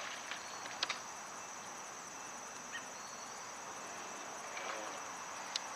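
Faint steady high-pitched insect trilling, with a couple of faint clicks.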